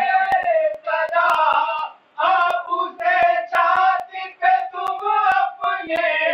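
A man's voice chanting a Shia mourning lament (noha) in long, wavering sung phrases, with sharp hand strikes keeping a loose beat: the chest-beating (matam) that goes with a noha.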